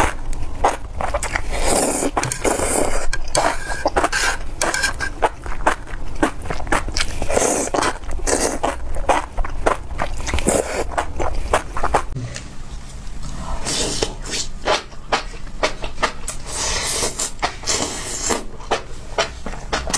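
Chewing of spicy enoki mushrooms, with a dense run of quick mouth clicks that eases briefly past the middle.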